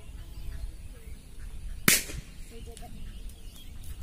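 A single sharp pop about two seconds in, over a low, steady outdoor background.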